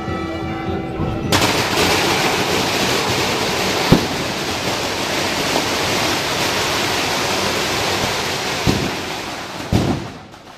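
A string of firecrackers going off in a dense, rapid crackle for about nine seconds, with a few louder bangs, then dying away near the end. Band music can be heard briefly before the crackle starts.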